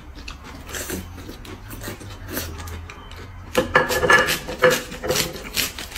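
Eating sounds: crisp lettuce leaves being bitten and chewed, with chopsticks and oyster shells clinking on the plates. The noise comes in short, irregular crunches and clicks, with a louder stretch about three and a half seconds in.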